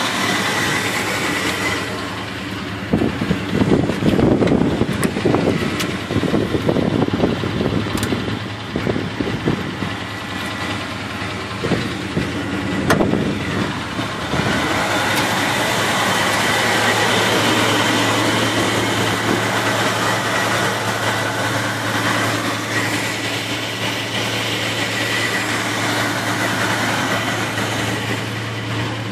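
1971 Chevelle's engine idling steadily, with a stretch of louder irregular rustling noise over it in the first half.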